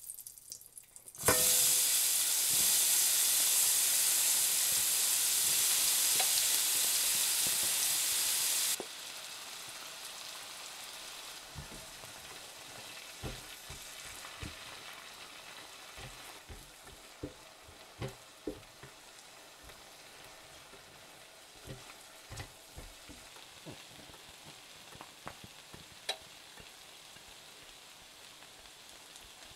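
Diced onion and red bell pepper hit hot fat in a stainless steel skillet, setting off a loud sizzle about a second in. Near a third of the way through the sizzle drops suddenly to a quieter, steady frying, and a silicone spatula knocks against the pan now and then as the vegetables are stirred.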